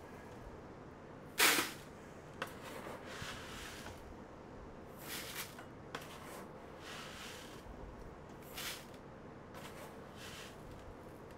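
A scoop digging into granular calcium nitrate fertilizer and pouring it into a plastic bucket on a scale: several short swishes, the loudest about a second and a half in, with a few light clicks of the scoop against the bucket.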